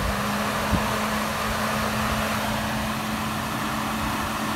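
Electric radiator cooling fan of a Chevy Impala running, switched on from a scan tool as a test: a steady rush of air over a steady motor hum.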